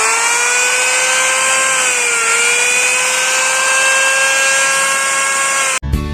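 Electric wood trimmer router running at full speed, a steady high whine that sags briefly in pitch about two seconds in. It cuts off suddenly near the end, giving way to music.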